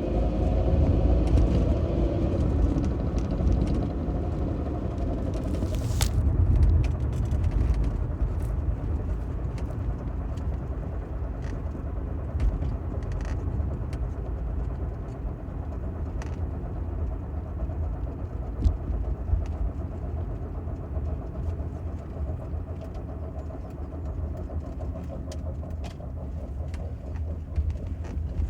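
Mercedes-Benz W124 rear differential humming under deep driving rumble. The hum wavers in pitch and is strongest in the first few seconds, then fades and returns fainter later. Occasional light clicks are heard.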